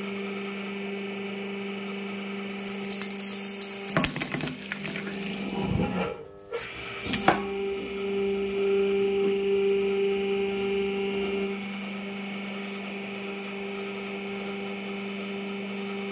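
Hydraulic press's electric pump motor humming steadily while the press crushes whole beetroots, with a run of cracks and crunches from about four to seven seconds in that ends in one sharp crack.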